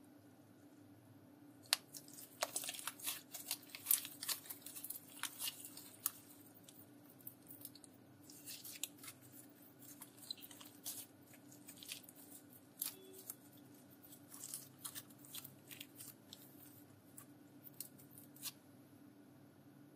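Thick slime being kneaded and squeezed by hand, giving a run of rapid crackling pops and clicks. They come thickest in the first few seconds, then thin out to scattered pops and stop shortly before the end.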